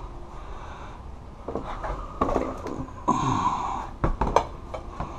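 Household items being handled and set into a plastic storage tote: scattered knocks and light clatter, with a short rustle about three seconds in.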